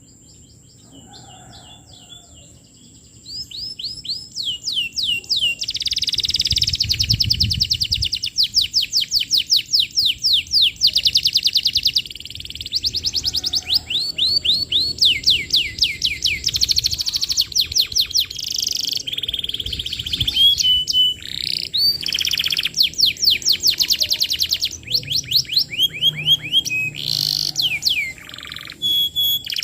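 Domestic canary singing in full voice: long runs of rapid trills made of quick downward-sweeping notes, broken by a few short held whistles. It is faint at first and loud from about three seconds in.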